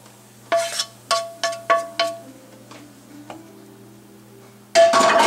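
A skillet and wooden spoon knocking against a stainless steel pot as food is scraped out of the skillet, about five ringing metal knocks in quick succession over the first two seconds. Near the end comes a louder clatter and scraping.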